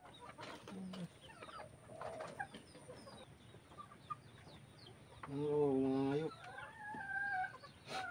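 Chickens clucking and chirping, then a loud, drawn-out call about five seconds in and a rooster crowing near the end.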